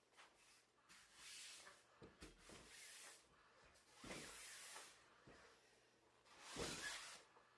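Faint rustling and swishing of a printed PhotoTex sticker being pressed and smoothed onto a door by hand to push out air bubbles. There are three louder swishes, about a second in, midway and near the end.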